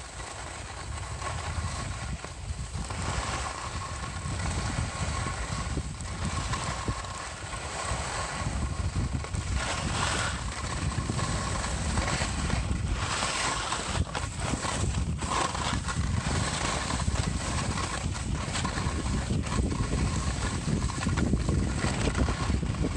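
Wind rumbling on the microphone during a downhill run on groomed snow, with the hiss and scrape of edges sliding and turning on the snow. It grows gradually louder as speed builds, with a few sharper swishes on the turns.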